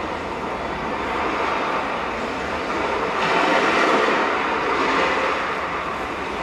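Recorded sound of sea surf played over a theatre's speakers: a steady rushing wash of noise with no tune, swelling louder a little past halfway.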